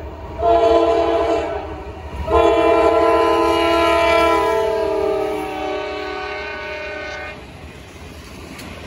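Norfolk Southern diesel locomotive's horn sounding a short blast, then a long blast of about five seconds whose chord drops in pitch as the locomotive passes. After the horn stops, the train's wheels rumble and clack over the rails.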